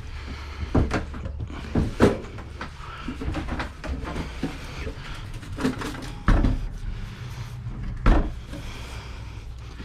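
Irregular knocks, clacks and scrapes of an old Gateway computer's case cover being pried and worked loose by hand, with a few sharper knocks standing out.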